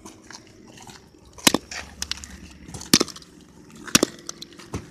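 Hammer blows smashing an old flip phone: several sharp cracking strikes about a second apart, with small clicks of plastic between them.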